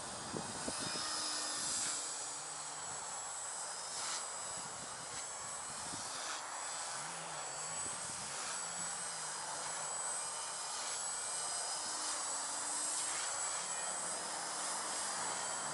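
Walkera V120D02S mini electric RC helicopter in flight: a thin, high, steady motor whine, with a lower rotor hum that rises and falls as it manoeuvres.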